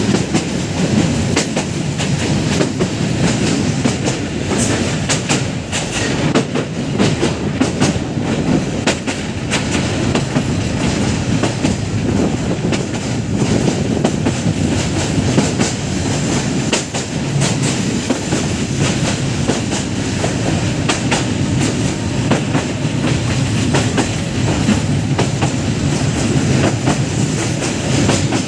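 Passenger train running along the track: a continuous wheel rumble with irregular sharp clicks as the wheels cross rail joints.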